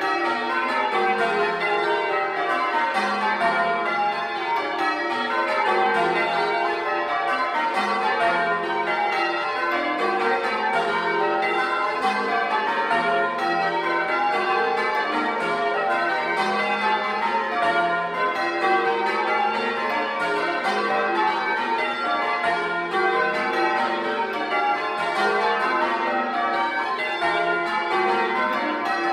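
A ring of ten church bells, tenor of 17 cwt in F, change ringing Grandsire Caters, heard up in the belfry among the bells: a continuous, evenly paced stream of overlapping bell strokes with no pause.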